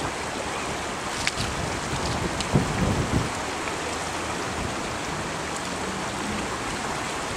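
Steady hiss of falling rain, with a few faint ticks of drops.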